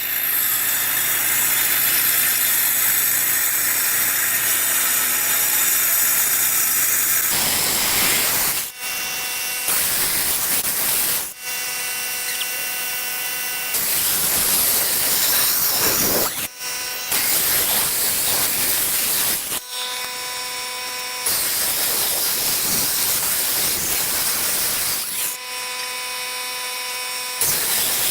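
Handheld power saw with a concrete-cutting blade grinding a control joint into a concrete slab. The sound is a loud, steady grinding hiss whose tone shifts every few seconds, with a motor whine that comes and goes.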